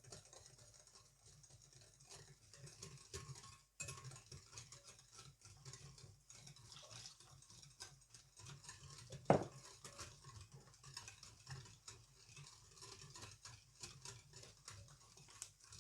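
Egg yolks, sugar and milk being hand-mixed in a bowl: quick, irregular scraping and tapping strokes of the utensil against the bowl, with one louder knock about nine seconds in.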